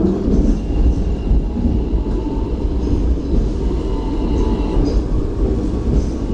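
Hong Kong double-decker electric tram running along its street track, heard on board as a steady low rumble of wheels on rails and the running gear.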